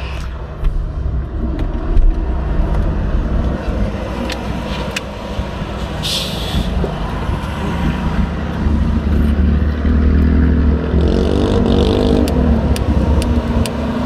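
Road traffic passing, heard from inside a parked car with its door open: a heavy truck's engine rumble swells through the middle, its pitch bending as it goes by, then falls away. A few light clicks near the end.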